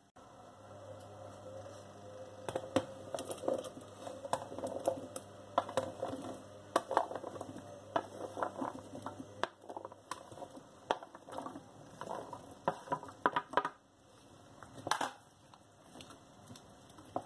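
Cut vegetable chunks going into a stainless saucepan of sauce and being stirred with a spoon: a busy run of irregular knocks, clinks and clatters that thins out about fourteen seconds in, with one more loud clatter shortly after.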